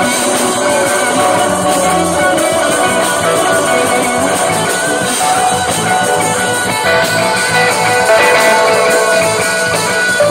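Live rock band playing: electric guitar over electric bass and drum kit, loud and steady throughout.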